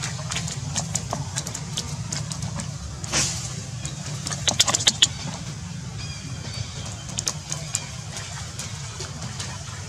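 Young macaques running and splashing through a shallow puddle: scattered slaps and splashes of water, with a quick burst of sharp splashes about four and a half to five seconds in. A steady low drone runs underneath.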